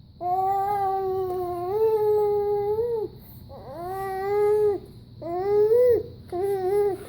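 Five-month-old baby vocalizing loudly in four long, drawn-out calls, each held at a steady high pitch: the first lasts about three seconds, then three shorter ones follow.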